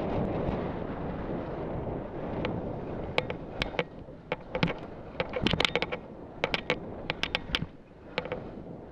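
Skiing at speed, with wind rushing over a helmet camera's microphone and a low rumble of skis running on snow. From about three seconds in come many sharp clicks and knocks, in irregular clusters, as the skis run over the packed spring snow.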